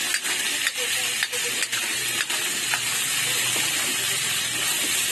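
Meat stir-frying in a hot wok, a steady sizzling hiss, with the metal spatula scraping and knocking against the wok about once or twice a second.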